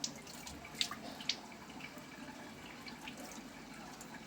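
Water dripping and splashing during a cat's bath: a few sharp drips in the first second and a half over a faint steady trickle, with a small-room echo.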